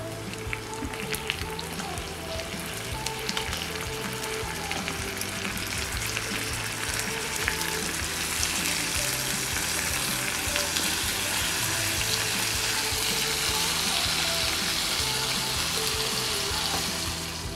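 Pork chops sizzling and crackling in a pan of melted butter, brown sugar and garlic, with a spatula moving them through the sauce. The sizzle grows a little louder about halfway through, with soft background music underneath.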